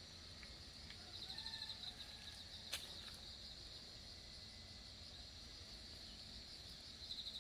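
Faint outdoor insect chorus: a steady high-pitched chirring with two bursts of rapid pulsed trills, one about a second in and one near the end. A single sharp click comes just under three seconds in.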